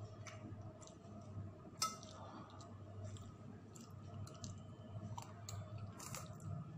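Metal fork and spoon clicking and clinking against a glass bowl while noodles are scooped, with a sharper clink about two seconds in and another near the end, and quiet chewing.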